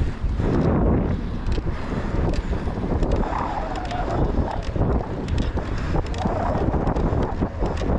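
Wind buffeting the microphone of a camera riding on a cyclocross bike at race speed, over a rough rumble of the bike's tyres on the dirt course. Frequent sharp clicks and rattles come from the bike jolting over bumps.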